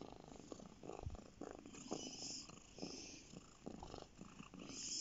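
Domestic cat purring, a soft continuous purr of rapid pulses.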